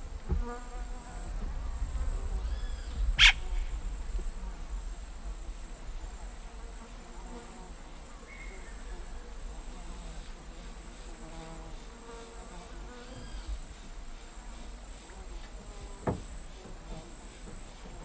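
Tropical forest ambience: a steady high-pitched insect drone and buzzing insects, arched calls from birds, and a yellow-rumped cacique calling at its nest hole. A loud sharp click comes about three seconds in, and a smaller one near the end.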